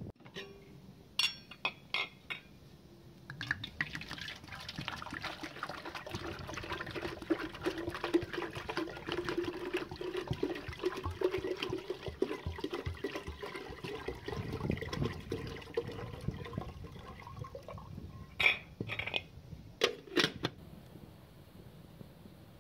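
Water poured from a clay jug into an aluminium kettle in a steady stream for about fifteen seconds. Near the end come a few sharp metal knocks as the kettle is set over the wood fire.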